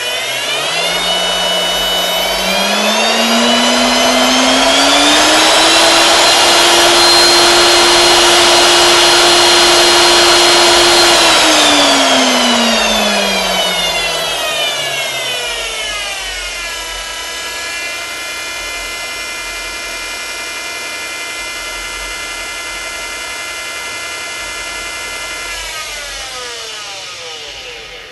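Router spindle motor on a ShopBot CNC router whining at about 5,000 RPM, then rising in pitch as the Super PID speed knob is turned up. It holds a high steady speed for several seconds, glides back down to a lower steady speed, and winds down near the end.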